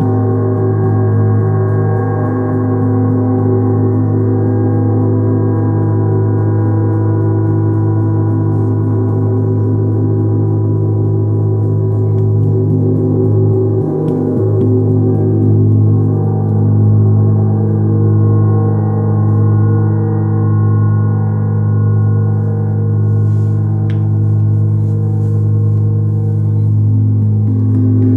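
Large planet-tuned moon gong played continuously with felt mallets, a sustained shimmering wash over a strong low hum near its fundamental. About halfway through the sound dips briefly, then rises and falls in slow swells about every two seconds.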